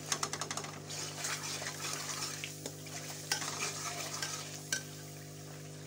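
Metal ladle stirring and scraping a tomato-and-spice masala frying (bhuna) in a metal karahi, with a light sizzle, while the tomatoes are mashed down into a paste. Quick strokes in the first second, slower scattered scrapes after, stopping about five seconds in.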